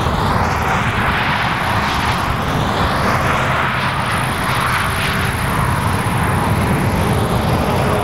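Steady rush of distant motorway traffic, with a low rumble underneath and a faint high hiss.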